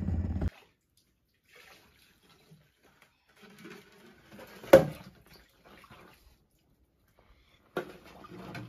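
Sparse faint handling noises with one sharp knock about halfway through; busier clattering picks up near the end.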